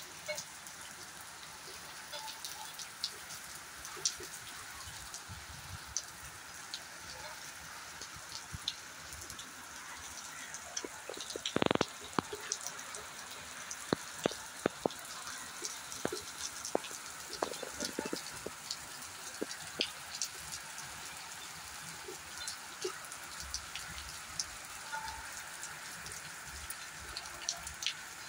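Heavy rain pouring onto a flooded terrace and plant leaves: a steady hiss of rain with many sharp close drop taps scattered through it. One louder knock about halfway through.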